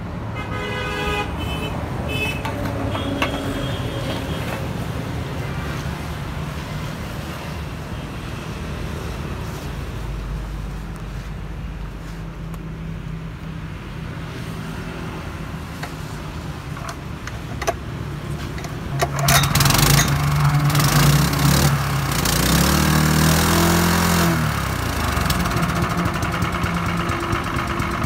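Mitsubishi G500 5 hp petrol engine test-running steadily. About two-thirds of the way through it runs much louder for several seconds, its pitch wavering, then settles back.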